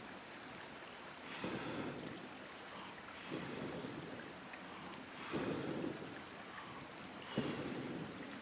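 Water lapping in small, regular waves, one soft wash about every two seconds.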